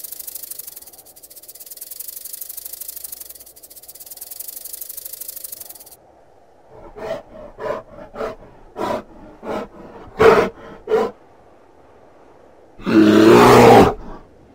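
A snake hissing in three long swells, then a brown bear giving a run of short grunts and, near the end, a loud growl.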